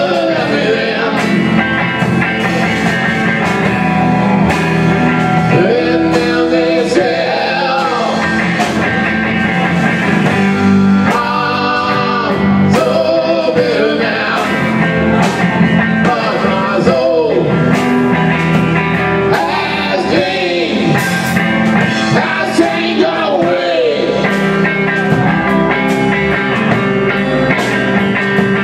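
Live rock band playing an instrumental passage: electric guitar lead with bending notes over bass guitar and drum kit.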